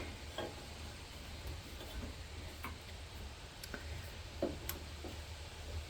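Faint, irregular metallic clicks, about seven spread over several seconds, over a low steady hum: a wrench being worked on the idler pulley bolt of a riding-mower deck.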